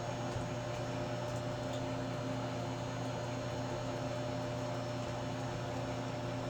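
Steady mechanical hum with a few fixed low tones, unchanging throughout.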